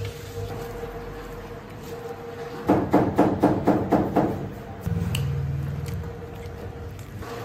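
A quick run of about eight sharp knocks, five or six a second, followed by a low steady hum lasting about a second.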